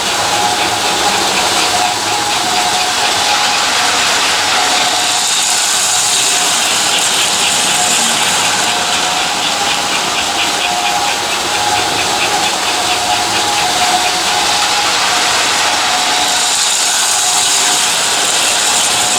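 American Flyer S-gauge toy electric trains running on a layout: a steady motor hum with a fine rapid clatter from the track. A hiss swells twice, about five seconds in and again near the end.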